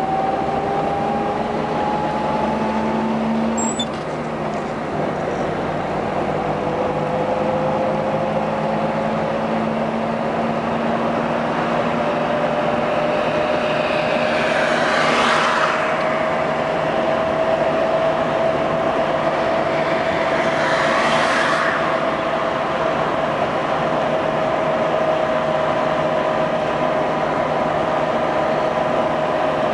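A car's engine and tyre noise heard from inside the moving car: a steady rush with a faint engine tone that climbs slowly as the car gathers speed, then holds. Twice, about halfway through, a brief swell of rushing noise from passing traffic.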